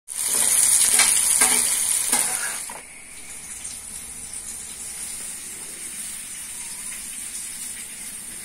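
Hot oil sizzling as food fries: loud with a few crackles for about the first three seconds, then dropping to a quieter steady hiss.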